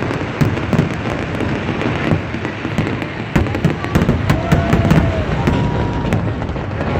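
Fireworks finale barrage: a rapid, continuous run of aerial shell bangs and crackling, with a couple of faint whistling tones a little past halfway.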